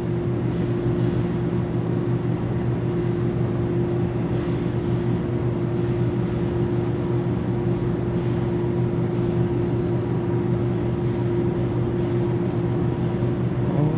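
Steady mechanical hum, a low droning tone over a constant hiss, as from an appliance or air-handling unit running.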